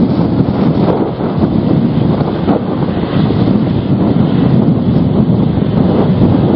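Storm-force wind buffeting the microphone: loud, gusty rumbling noise that rises and falls without letup.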